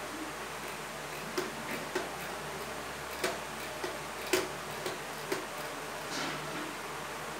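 Whiteboard being wiped clean by hand: a few light, irregular knocks and taps as the board and eraser are pressed and moved, with a soft rubbing stroke near the end, over a steady background hiss.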